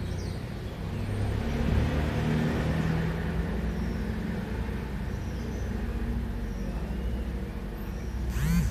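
Steady low background rumble, with two short calls that rise and fall near the end.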